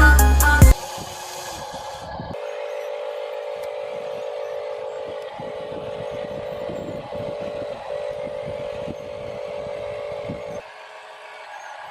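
Background music cuts off within the first second. A steady motor drone holding one pitch follows; it breaks off briefly three times and stops shortly before the end.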